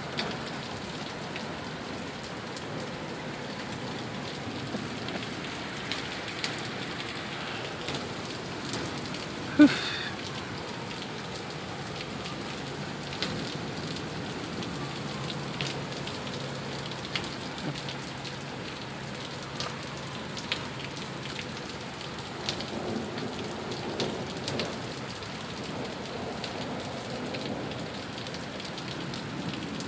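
Heavy rain falling steadily in a downpour, with scattered ticks of drops striking nearby surfaces. One brief, louder sound stands out about ten seconds in.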